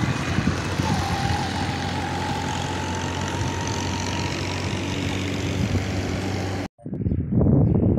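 Steady outdoor noise with the low hum of a motor vehicle's engine running. Near the end it cuts out suddenly and gives way to a duller, uneven thumping noise.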